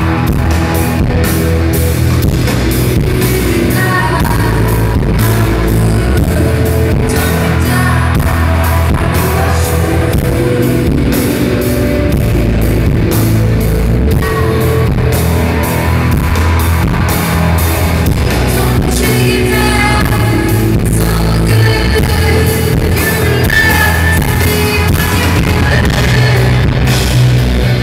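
Live indie rock band playing loudly: a female lead vocal sung into a microphone over electric guitars, bass and drums, recorded from the audience.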